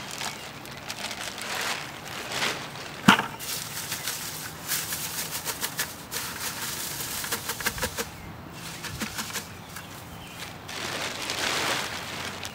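Thin plastic sheeting crinkling and rustling as it is handled and shaken over a plastic bucket, with one sharp knock about three seconds in.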